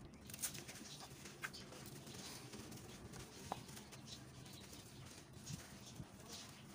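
Faint wet, gritty crumbling of a soaked sand-cement block squeezed apart by hand in a basin of muddy water, with scattered soft clicks of grit.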